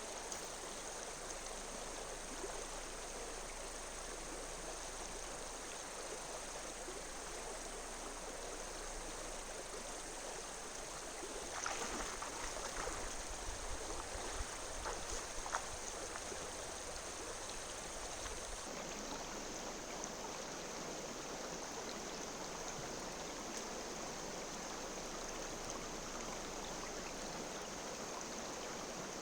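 Steady rush of a river's flowing water, with a few faint clicks near the middle.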